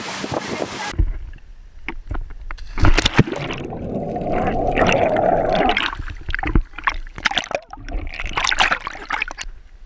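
Water heard with an underwater microphone: muffled churning and bubbling as swimmers plunge and kick, with scattered sharp clicks and knocks; the densest churning comes a few seconds in. The first second is wind and water noise above the surface, cut off abruptly.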